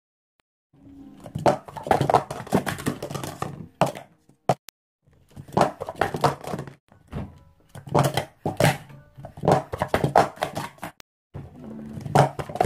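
Plastic sport-stacking cups clattering and clicking in rapid flurries as they are stacked up and knocked down on a stacking mat, in several runs with short pauses between. Silent for about the first second.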